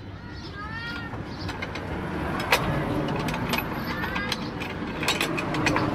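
Steel wire clinking against a homemade angle-iron bending jig as it is bent into a stirrup, with several sharp metallic clicks, the loudest about two and a half seconds in and a cluster near the end. A rumbling background swells from about two seconds in, and two short calls are heard.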